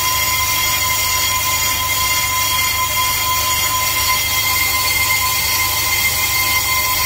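Brake-disc lathe skimming the cast-iron face of a new Zimmermann brake disc. The cutting tool on the spinning disc gives a steady high-pitched squeal over the machine's low hum. The disc is being turned true to remove its runout.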